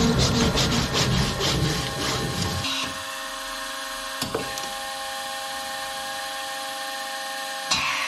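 A saw cutting metal in even, repeated strokes, about three a second. About two and a half seconds in this gives way to a steady machine hum with a few fixed tones, broken by a single click.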